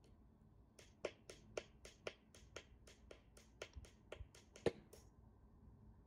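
Small learning button on a 433 MHz wireless relay receiver board pressed eight times in quick succession: a fast run of faint clicks, about four a second, the last one a little louder. Eight presses of the learning button clear every remote paired to the receiver, so they must be paired again.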